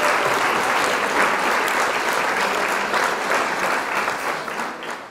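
Applause, many hands clapping, fading down near the end.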